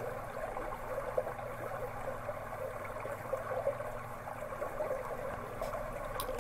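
Steady, soft sound of running water.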